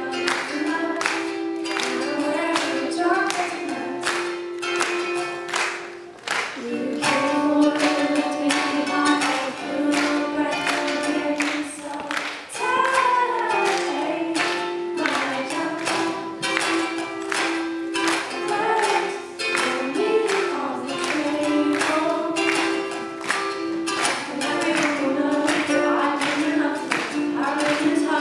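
A woman singing to her own ukulele, strummed in a steady rhythm under the sung melody.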